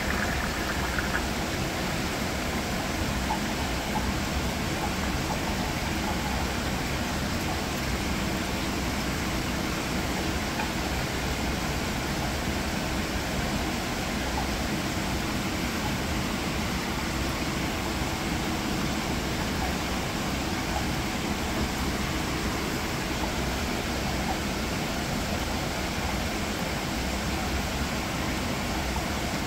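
Steady hum and even rushing noise of a fish tank's water pump and filtration running, unchanging throughout.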